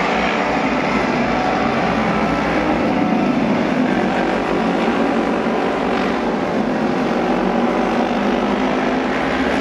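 Japanese auto race motorcycles racing around an asphalt oval, their engines running together in a loud, steady sound.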